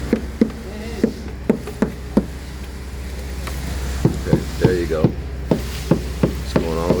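A dozen or more sharp knocks at an irregular pace over a steady low engine drone, with a voice starting near the end.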